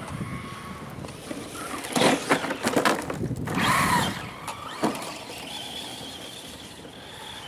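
Brushless electric motor of a 1/10 radio-controlled rally car whining as the car drives past close by, its tyres spinning through snow. It is loudest about two to four seconds in, with the whine rising and falling, then a fainter steady whine continues as the car moves off.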